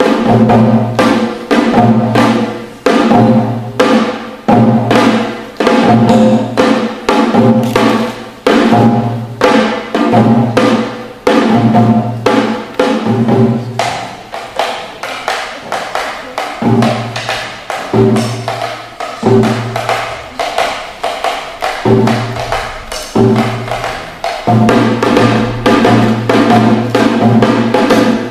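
Korean traditional drums played with sticks, keeping a steady dance rhythm: deep booms about once a second with quicker sharp strokes between them. The playing thins out and gets quieter in the middle, then fills out again near the end.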